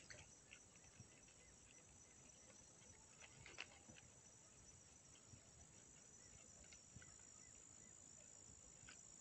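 Near silence: faint outdoor ambience with a few faint ticks, the clearest about three and a half seconds in.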